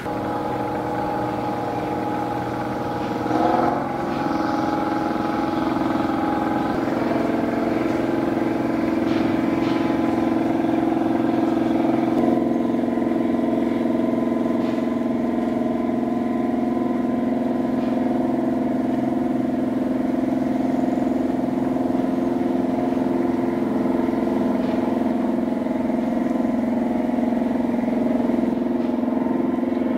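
Steady drone of a marine engine, several held tones together, over a haze of rushing water. A brief louder, wavering swell comes about three and a half seconds in, and the tones shift slightly around seven and twelve seconds in.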